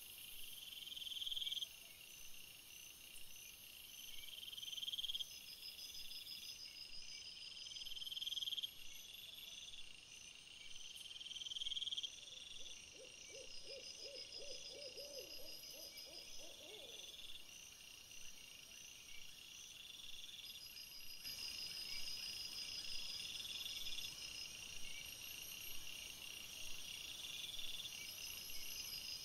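Night insects, crickets or bush-crickets, chirping high and repeatedly every few seconds. About halfway through there is a short run of low, rapid pulsed calls.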